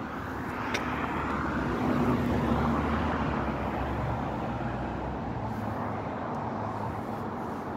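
Road traffic: a motor vehicle's engine and tyres passing, swelling about two seconds in, then a steady traffic hum.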